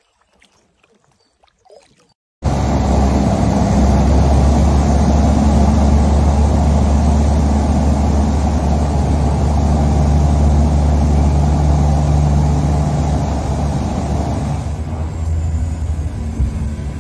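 Seaplane's propeller engine heard from inside the cabin while the plane taxis on the water: a loud, steady drone with a low hum. It starts abruptly about two seconds in and eases a little near the end.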